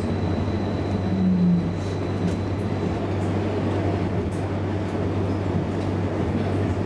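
Cabin noise inside an A32 tram as it draws up to a platform and halts: a steady low hum with a rumble underneath, and a brief louder low tone about a second in.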